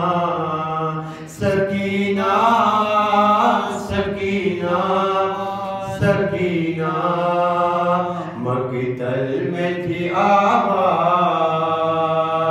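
A man chanting a marsiya, an Urdu elegy for the martyrs of Karbala, solo and unaccompanied, in long held, wavering melodic phrases with a short breath between them.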